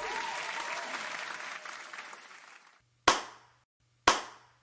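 Crowd applause fading out over about two and a half seconds. After a short silence, two single loud claps come about a second apart: one person slow-clapping.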